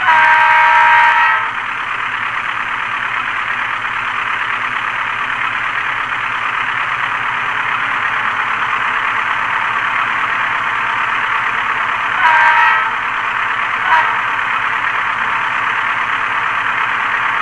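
ESU LokSound Select sound decoder in an HO-scale GE U20C model locomotive, playing a GE FDL diesel engine idling through the model's small speaker. The locomotive's multi-note horn sounds for about a second and a half at the start, again briefly about twelve seconds in, and gives a short toot soon after.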